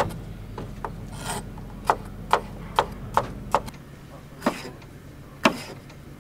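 Kitchen knife chopping red bell pepper on a plastic cutting board: irregular sharp knocks of the blade striking the board, about a dozen in all.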